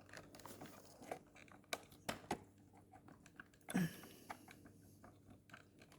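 Faint, scattered plastic clicks and taps as a replacement rear wheel and its shaft are handled and lined up against a Shark DuoClean vacuum's plastic housing, with a few sharper clicks about two seconds in and a brief scrape a little later.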